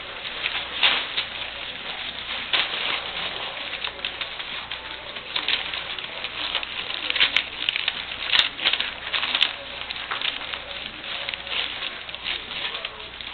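A litter of English Springer Spaniel puppies eating together at feeding time: a dense, steady run of small smacking and clicking sounds, with a few sharper clicks between about seven and nine and a half seconds in.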